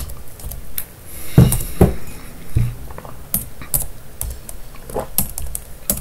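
Typing on a computer keyboard: scattered, irregular keystrokes as numbers are entered, with a couple of heavier thuds about a second and a half in.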